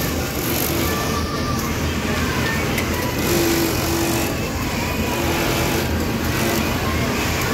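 Steady mechanical din of industrial sewing machines running on a garment workshop floor, with short faint whining tones coming and going.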